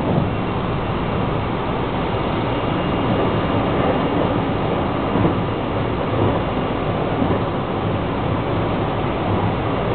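JR West 223 series 2500 electric multiple unit running along the line at speed, heard from inside the front of the train: a steady rumble of wheels on rail.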